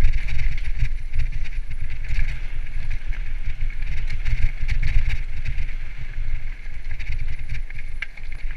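Mountain bike descending a dirt trail at speed: wind buffets the handlebar-mounted camera's microphone in a steady low rumble, while the tyres run over dirt and stones and the bike rattles and knocks over the bumps.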